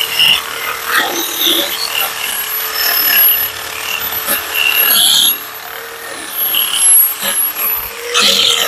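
Drill spinning a homemade emery-cloth sander on a threaded rod against carved wood: a steady motor whine with rough scratchy sanding, which eases off briefly about five seconds in.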